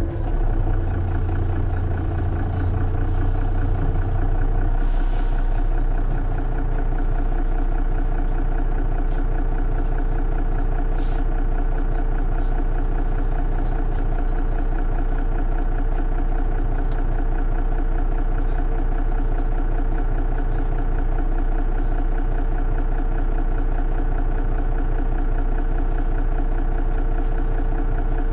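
Mercedes-Benz Citaro Facelift city bus engine running steadily, heard from on board the bus. A strong deep hum in the first five seconds drops away, and the engine then runs on at an even note.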